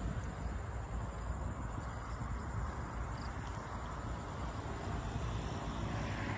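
Wind rumbling on the microphone over a steady outdoor hiss.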